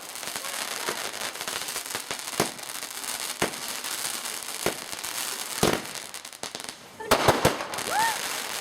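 Fireworks going off: a steady fizzing crackle with single sharp bangs every second or so, then a quick run of several bangs about seven seconds in.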